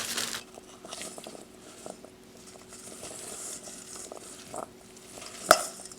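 Faint handling of plastic food bags: scattered soft rustles and light clicks, with one sharp click about five and a half seconds in.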